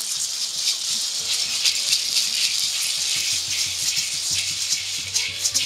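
Several gourd maracas shaken together in a continuous, dense rattle.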